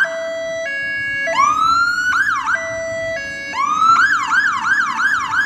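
Fire engine's electronic siren stepping through its tones: a two-note hi-lo, a rising wail, a brief fast yelp, the hi-lo again, then about four seconds in it settles into a fast yelp of about three up-and-down sweeps a second.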